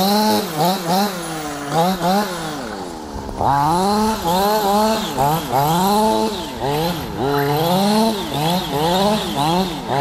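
Gasoline two-stroke engine of a Losi 5ive-T 2.0 1/5-scale RC truck revving up and down again and again as it is driven, its pitch rising and falling with each blip of the throttle. It eases off briefly about three seconds in.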